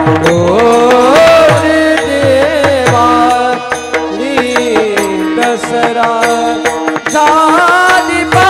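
Devotional singing in raag Bhairavi: a voice gliding through ornamented phrases over steady held notes, with Warkari mridang (pakhawaj) strokes whose low tones bend downward.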